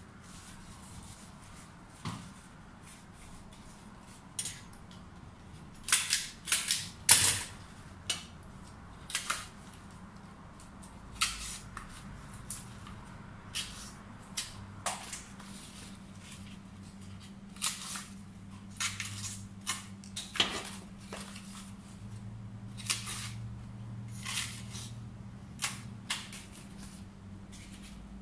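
Sharp, irregular clicks and snaps from hand work on leaves, the loudest a quick cluster about six to seven seconds in, over a steady low hum.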